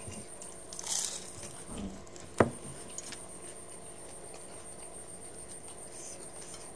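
Quiet eating at a table: a short hiss about a second in, and a single sharp clink of a spoon against a ceramic plate about two and a half seconds in.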